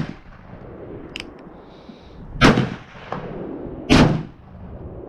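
Black-powder cap-and-ball revolver firing two shots about a second and a half apart, each sharp report followed by a ringing echo. The tail of an earlier shot dies away at the start, and there are a couple of faint clicks about a second in. The second shot is the chain fire: more than one chamber of the cylinder goes off at once.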